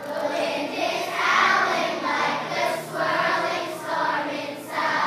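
Large children's choir singing together, in phrases with short breaks between them.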